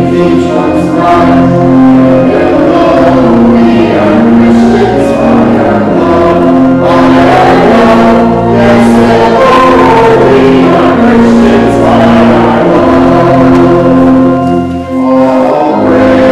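Church congregation singing the offertory hymn with instrumental accompaniment of held notes, with a brief pause between lines near the end.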